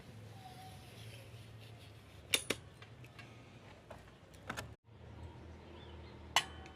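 Sharp metallic clicks and clinks from handling a rifle-style slingshot, a quick double click a little past two seconds in and more clicks about four and a half seconds in. Near the end comes the loudest sound: a single sharp snap with a brief metallic ring.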